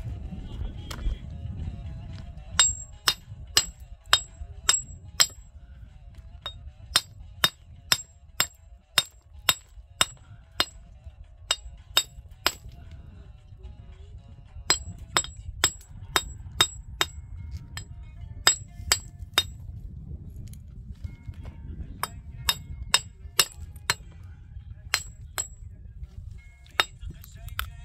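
Small metal hammer tapping a stone block to dress it to shape: sharp, ringing strikes in runs of several, about three a second, with short pauses between runs.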